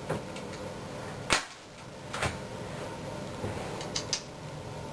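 Cheap airsoft pistol firing a single BB into an open drawer, one sharp snap about a second in, followed by a fainter click about a second later.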